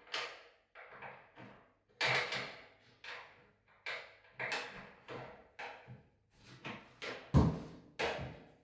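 Irregular clacks and knocks, about two a second, from a mirror cabinet's door and hinges as the door is handled and fitted to the cabinet. The loudest is a deeper thud about seven seconds in.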